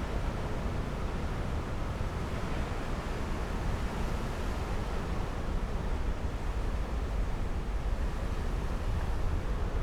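Wind buffeting the microphone with a low rumble, over the steady rush of sea surf.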